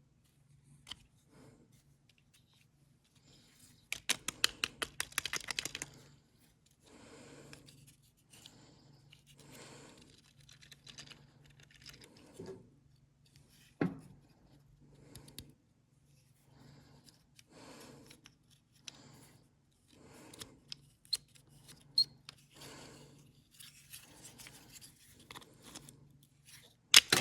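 Small metal parts and a hand tool clicking and scraping on a lawnmower carburetor as the float and needle are worked loose from the carb body. A quick run of clicks comes about four seconds in, scattered scrapes follow, and a sharp click comes near the end.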